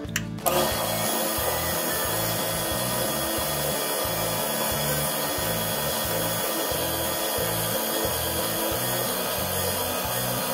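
KitchenAid tilt-head stand mixer switched on about half a second in and running steadily at low speed, its flat beater churning flour into a butter and molasses cookie dough in a glass bowl.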